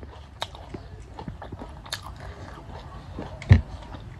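Close-miked chewing and biting of mutton goat head: irregular wet mouth clicks and smacks, with a louder low thump about three and a half seconds in.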